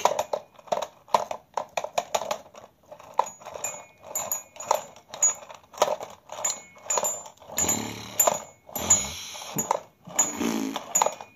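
Plastic toy police motorcycle being pushed back and forth by hand, its wheel gearing giving short whirring bursts, about two or three a second.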